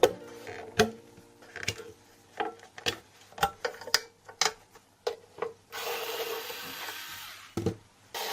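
Hand disassembly of a solar inverter: a string of sharp clicks and knocks as tools and metal parts are handled, then about six seconds in a steady scraping, rubbing noise lasting a second and a half, broken by one more knock.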